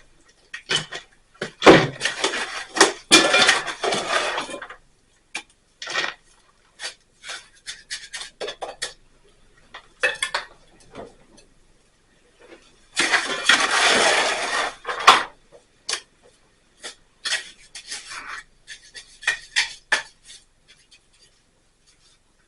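Hard objects clinking and knocking, with two longer scrapes, one near the start and one past the middle, like metal scraping over a hard, gritty surface.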